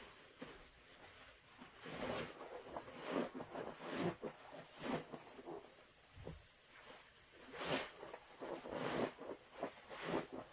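Rubber-gloved hands squeezing and scooping thick soap suds in a plastic tub: irregular wet squishing of the foam in short bursts, about one a second.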